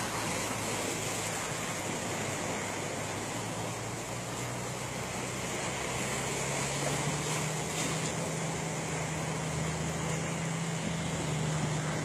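Steady rush of wind and sea with a low, steady engine hum underneath, typical of a ship under way; the hum grows a little stronger about halfway through.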